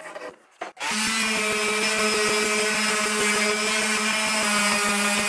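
Random orbital sander running steadily on a hardwood pedalboard frame, coming in abruptly about a second in after a quiet start.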